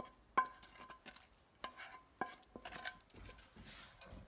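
Roasted vegetables being scraped from a glass baking dish into a stainless steel pot with a wooden spoon: about four sharp clinks that ring briefly, with soft scraping and sliding in between.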